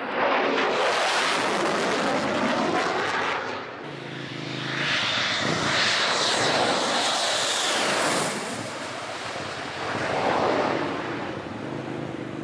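Dassault Mirage 2000N jet fighters flying low overhead, their jet engine noise swelling loud three times: a loud stretch at the start, a second pass from about five to eight seconds in with a sweeping, falling pitch, and a smaller swell near the end.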